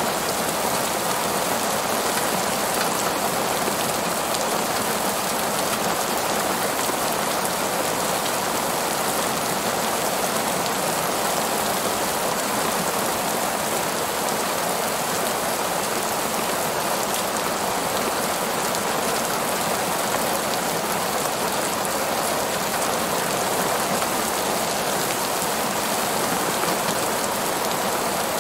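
Heavy rain falling steadily on a paved parking lot: a dense, even hiss of drops.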